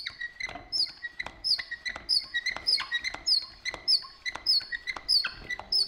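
Wooden treadle spinning wheel worked by foot, squeaking with a short click on each pedal stroke, about twice a second.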